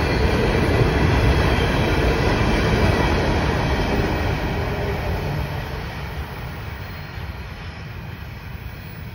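Freight train's open-top hopper cars rolling past on the rails, a steady rumble of wheels on track. It fades in the second half as the last car goes by and draws away.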